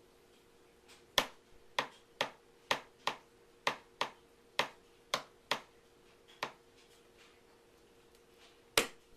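A series of sharp, short taps, about a dozen at uneven intervals of roughly half a second, then a pause and one last loud tap near the end.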